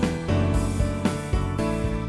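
Instrumental background music, with notes struck about twice a second.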